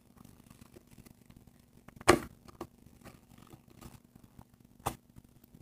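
Plastic cap of a contact-solution bottle being twisted and pried at, a cap that won't come off: faint scattered clicks, with a louder snap about two seconds in and another sharp click near the end.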